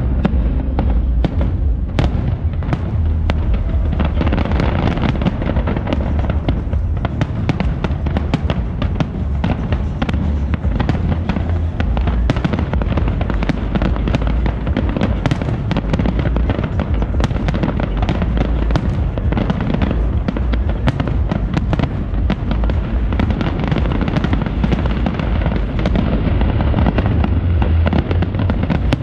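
Aerial firework shells bursting in a dense, continuous barrage of bangs and crackles.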